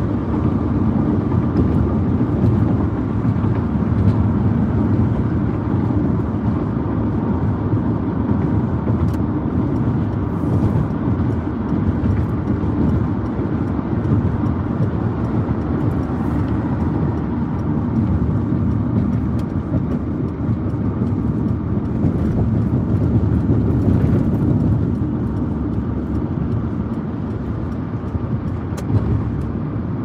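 Steady rumble of a moving car heard from inside the cabin: tyres rolling on the pavement with the engine running.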